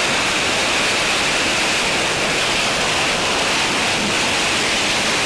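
Jet noise of an AV-8B Harrier II's Pegasus turbofan as the jet hovers: a steady, unbroken rush with a hiss strongest in the upper range.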